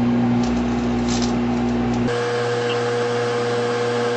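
Microwave oven running with a steady hum; its tone shifts to a higher pitch about halfway through.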